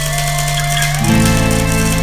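Background music of sustained tones, with the chord changing about a second in.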